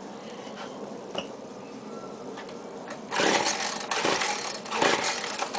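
Poulan Pro 42cc two-stroke chainsaw being pull-started: about three seconds in, three quick, loud pulls of the recoil starter crank the engine without it catching. The on/off switch is still off.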